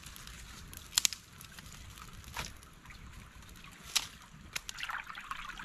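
Small twig campfire crackling, with a handful of sharp snaps and pops: a loud double snap about a second in, others near the middle and about four seconds in, and a quicker run of them near the end. A shallow stream runs steadily underneath.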